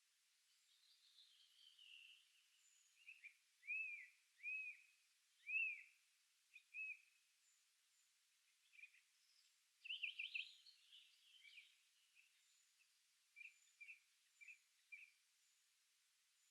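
Several songbirds singing in a quiet forest: a series of loud, arched notes about four to six seconds in, a busier burst of song about ten seconds in, and a run of short notes near the end, with faint, thin high calls in the background.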